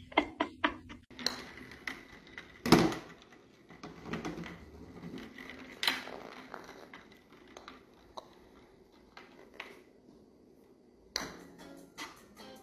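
Scattered light knocks and clicks, with a louder thump about three seconds in and another about six seconds in.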